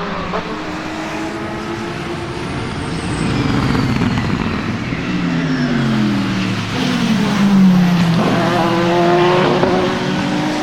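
BMW M Hybrid V8 hypercar's twin-turbocharged V8 racing engine at speed. Its pitch falls in several steps through the middle, as on braking and downshifting, then holds a steadier note near the end.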